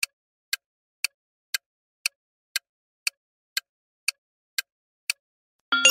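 Quiz countdown timer sound effect ticking evenly, about two ticks a second. Just before the end a ringing chime starts, the cue that time is up.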